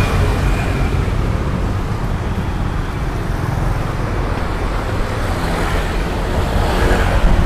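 Steady rumble of road traffic, an even low noise with no single vehicle standing out.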